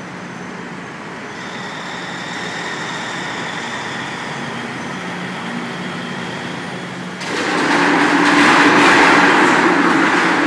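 Steady machinery hum with a faint whine; about seven seconds in, a much louder rushing, grinding noise cuts in abruptly and keeps going.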